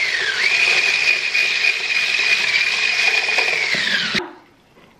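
Small electric kitchen mixing appliance running, a motor with a steady high whine. It dips in pitch briefly just after the start, then falls and cuts off about four seconds in.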